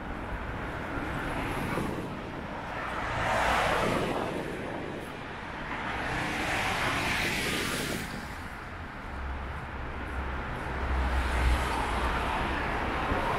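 City street traffic: cars passing one after another, each swelling in and fading away, about three in turn.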